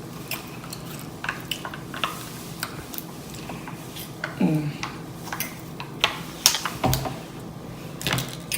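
Close-miked eating: chewing with wet mouth smacking, heard as many irregular short clicks. A short falling hum of voice comes about four and a half seconds in, and a low thump near seven seconds.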